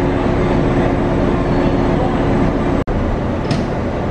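Queensland Rail diesel locomotive 2490 running at the platform: a steady rumble with two held humming tones. The sound breaks off abruptly just under three seconds in, and a plainer rumble follows.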